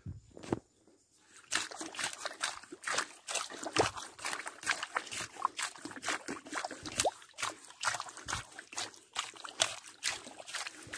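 Wet mangrove mud crackling and trickling: a dense, irregular run of small clicks and pops that starts about a second and a half in.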